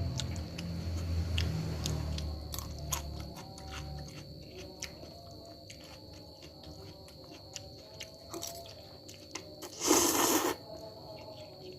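Close-miked mukbang chewing: a person biting and chewing fried instant noodles with raw onion, with many small crisp crunches. About ten seconds in there is one short, louder burst of noise.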